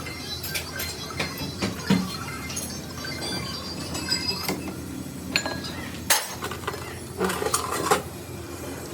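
Irregular light clinks and knocks of hard objects, with a louder sharp one about six seconds in and a quick cluster near the end.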